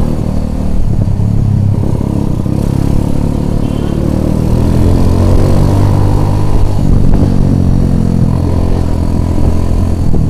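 Small motorcycle's engine running steadily as it is ridden along at low speed. The engine note rises a little through the middle.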